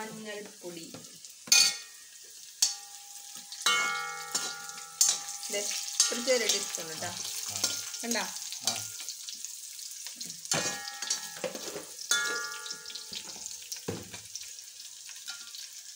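Onions, garlic and green chillies sizzling in an aluminium kadai while a spatula scrapes and knocks against the pan. Some of the knocks leave the metal pan ringing for a second or two.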